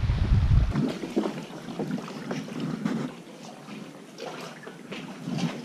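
Wind buffets the microphone for under a second. It gives way suddenly to the light, irregular splashing and lapping of a kayak paddle dipping into calm water.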